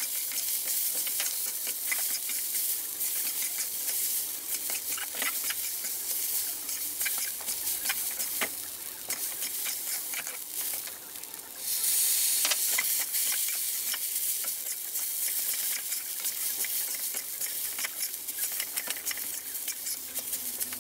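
Glutinous rice sizzling in a hot wok as a spatula scrapes and tosses it, with frequent short clicks of the spatula against the pan. A sudden louder burst of sizzling comes a little past halfway.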